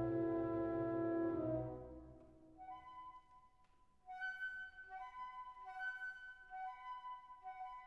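Background instrumental music: a sustained chord that fades out in the first two seconds, then a light melody of alternating held notes.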